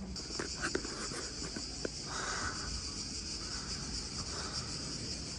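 Cicadas buzzing in a steady, high chorus, with a few faint clicks beneath.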